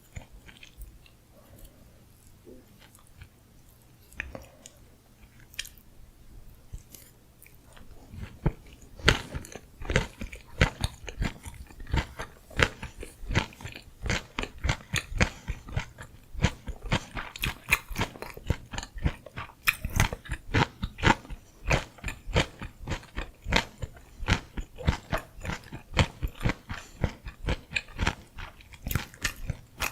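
Close-miked chewing of gimbap, the seaweed-wrapped rice roll. It is faint and sparse at first, and about eight seconds in it becomes loud, steady chewing with crunchy, regular strokes, a couple to each second.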